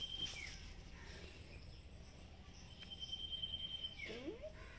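A cat gives one short meow near the end, over faint outdoor insect and bird sounds that include a steady high whistle lasting about a second in the middle.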